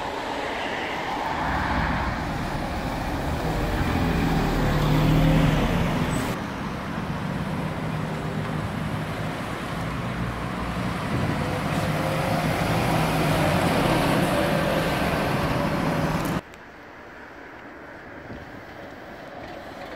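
Scania Citywide 12LF city buses driving past one after another: the diesel engine runs over tyre and traffic noise. It is loudest about five seconds in. Near the end the sound drops suddenly to a quieter, more distant bus.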